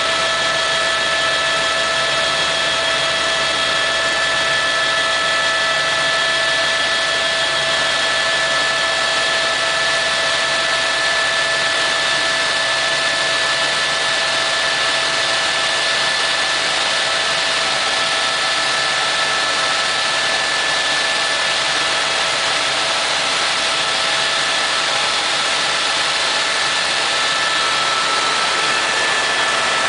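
Helicopter in steady cruise heard from inside the cabin: a constant engine whine with several steady high tones over an even rushing noise, unchanging throughout.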